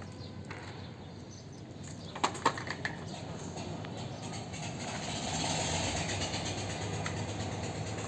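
Steady outdoor background noise that swells a little in the second half, with two light clicks about two seconds in from plastic toys being handled.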